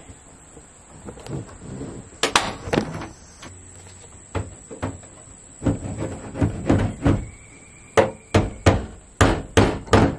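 Hammer striking staples through hardware cloth into the plastic wall of an IBC tote, with a wood block held behind them from inside: about fifteen sharp knocks in uneven clusters, coming more often in the second half.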